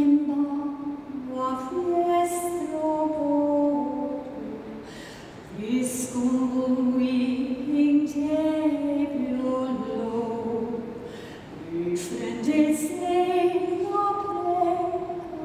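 A soprano singing unaccompanied, in long phrases of held notes that step up and down in pitch, with short breaks about five and a half and eleven and a half seconds in.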